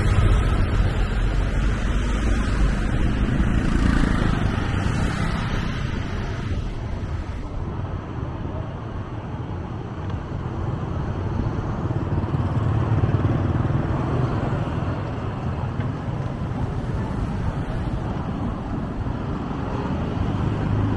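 Road traffic heard from a moving vehicle: a steady rumble of engines and tyres, its hiss thinning and the level easing a little about seven seconds in, then building again.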